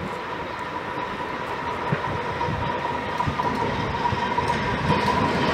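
Steam locomotive 03 1010, a three-cylinder German express engine, approaching and running past, its rumble and clatter on the rails growing steadily louder. A thin steady high whine sounds over the running noise.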